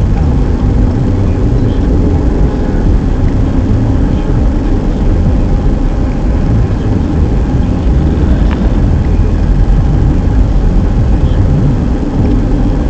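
Car driving: a steady, loud low rumble of engine and tyre noise, with no change in pace.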